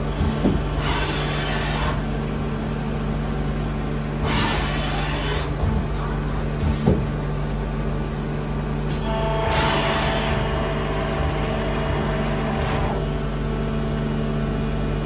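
Takisawa EX-310 CNC lathe running, with a steady machine hum as its tool turret travels and repositions. Three hissing bursts of about a second each come about a second in, near the middle and about two-thirds through, and a steady whine joins for a few seconds with the last one.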